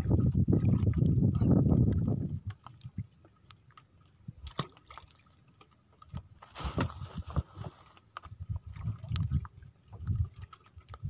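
Water sloshing and lapping at the side of a small outrigger fishing boat, with scattered light clicks and knocks. A loud low rumble fills the first two seconds, and a brief rush of noise comes about six and a half seconds in.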